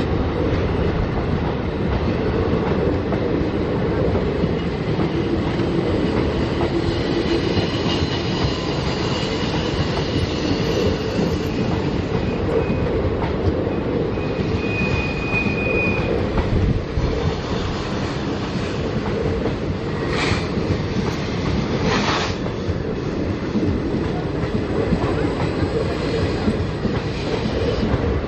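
Passenger train coaches rolling on two parallel tracks, a steady rumble of wheels with clickety-clack over the rail joints. A brief high wheel squeal comes about halfway, and two sharp clacks follow a few seconds later.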